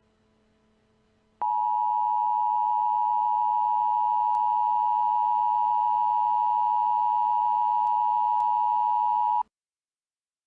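Emergency Alert System attention signal: a steady two-tone alert pitched around 900 Hz that starts sharply about a second and a half in, holds for about eight seconds and cuts off suddenly. A faint low hum comes before it.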